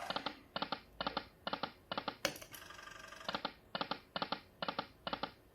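Poker machine reels stopping one after another, each with a short clicky electronic tone: two runs of five stops, about two a second, with a brief pause between the runs.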